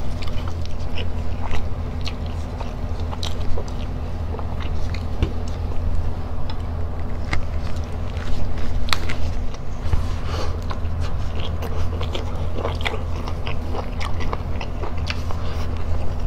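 Close-up mouth sounds of a person chewing a mouthful of fish and rice, with many short mouth clicks, over a steady low hum.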